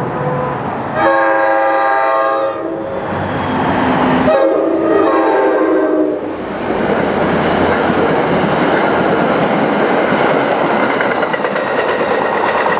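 NJ Transit diesel commuter train sounding its K5LA five-chime horn in several long blasts as it approaches, then passing close with a steady rumble of locomotive and coaches and wheels clicking over the rail joints.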